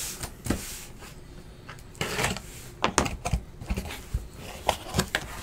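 Hands handling cardboard trading-card boxes: scattered light clicks and knocks, with a few sharper taps around the middle and near the end.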